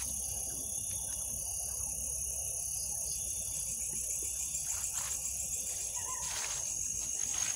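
Insects, crickets by their sound, chirring steadily in a high-pitched, finely pulsing drone, with a few faint ticks near the end.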